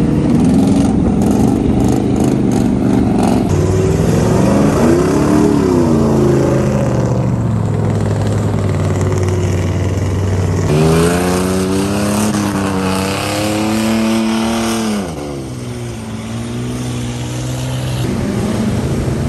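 Pickup truck engines revving hard while the trucks drive and spin their tyres through deep mud. The pitch winds up and falls back several times, with the longest, loudest rev about 11 to 15 seconds in.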